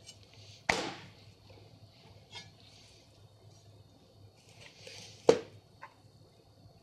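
Chef's knife working on a round fish on a cutting board: two sharp knocks, one under a second in and a louder one about five seconds in, with faint scraping of the blade between them.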